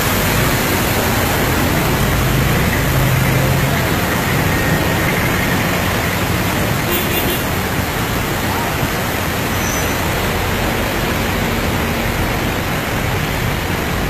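Steady, loud rushing-water noise, with the low hum of idling vehicle engines underneath.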